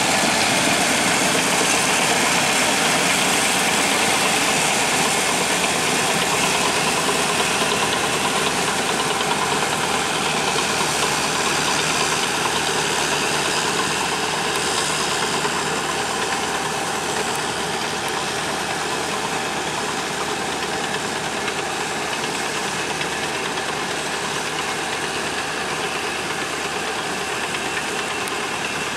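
Crawler tractor's engine running steadily, its sound slowly getting a little quieter over the stretch.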